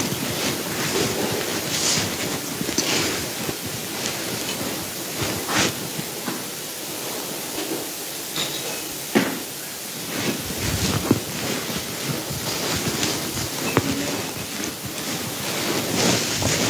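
Steady hiss of room noise with scattered soft clicks and rustles from people in the pews.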